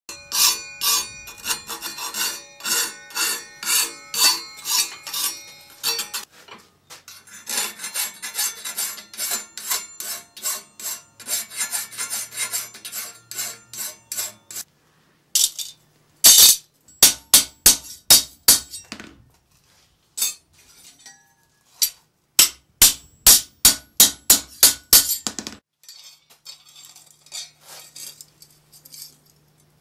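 Hand hammer striking a steel acanthus leaf worked over a stake in repoussé. The blows come in runs of ringing strikes about two to three a second, with a quieter, quicker stretch and short pauses between runs.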